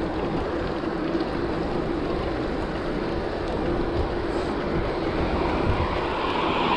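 Wind rushing over an action-camera microphone and bicycle tyres running on tarmac while riding a gravel bike, with a steady hum under the rumble.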